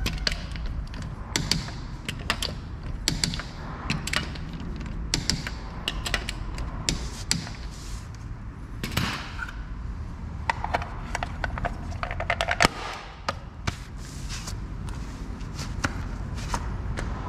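Irregular clicks, taps and knocks of hand tools being worked and handled at a car's front wheel, over a steady low hum.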